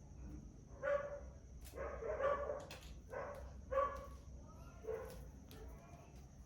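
A dog barking in short barks, about five over a few seconds, with a few light clicks between them.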